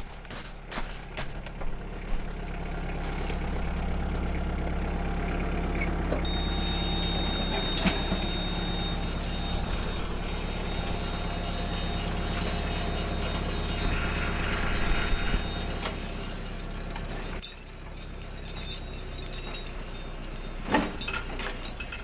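56 HP Kubota tractor engine running steadily, driving the Fransgård log winch, with a thin steady whine over it for several seconds in the middle; the sound drops off suddenly about 17 seconds in. A few crunching steps in snow come at the start.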